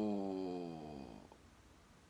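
A man's drawn-out hesitation hum, falling in pitch and fading out over about a second, then quiet room tone.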